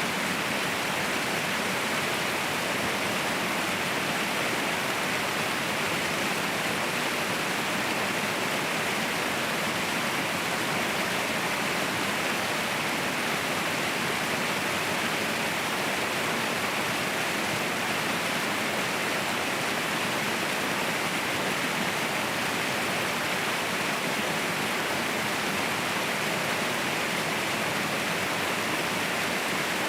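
Waterfall rushing, a steady, even wash of falling water with no change in level.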